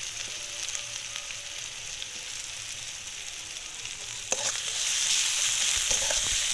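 Onions, ginger-garlic-chilli paste and freshly added chopped tomato sizzling in hot oil in a metal kadai. The sizzle grows louder about four seconds in, when the metal spatula starts stirring, with a few sharp clicks of the spatula against the pan.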